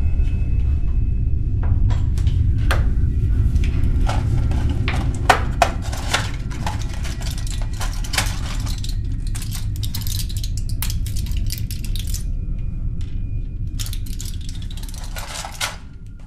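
A steady low rumbling drone, with scattered sharp clattering and rattling clicks over it, like dishes or small objects knocking. The drone fades away near the end.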